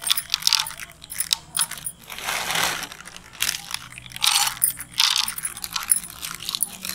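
Metal spoon clinking and scraping against a metal bowl in a run of short bursts, as chocolate chips are added to the milk mixture.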